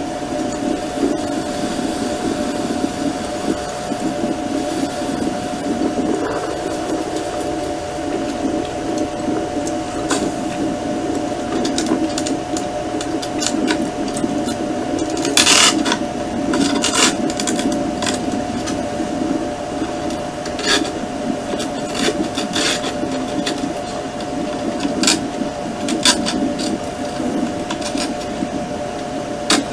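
A mass of honeybees humming steadily as a package of bees is shaken out onto the hive frames, with sharp knocks and rattles from the wooden package cage being tapped and jostled, several of them in the second half.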